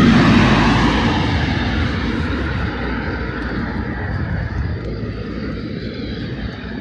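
A motor vehicle passing close by, loudest at the start and then fading away.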